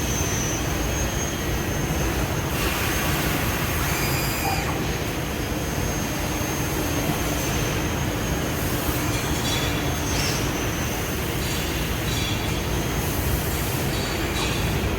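Transfluid EDB 642-CNC-R/L CNC tube bender running: a steady mechanical drone with a low hum and a thin high whine, broken by short high-pitched squeaks and clicks, the loudest around the middle and later on.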